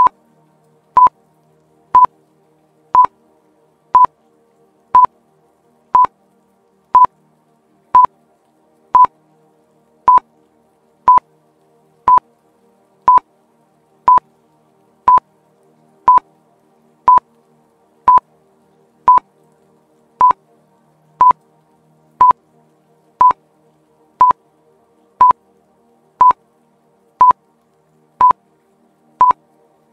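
Quiz countdown timer beeping once a second, a short, high single-tone beep each second, about thirty beeps in all, over faint background music.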